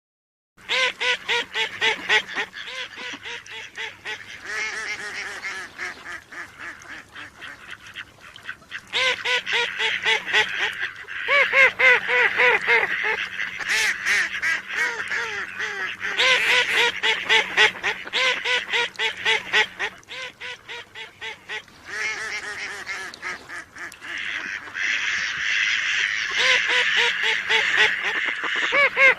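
Mallard duck quacking: rapid runs of loud, nasal quacks in several bouts, with short pauses between them.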